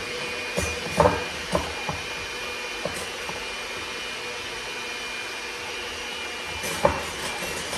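Electric hand mixer running steadily, beating egg whites in a bowl. A few sharp knocks of the beaters against the bowl, the loudest about a second in and near the end.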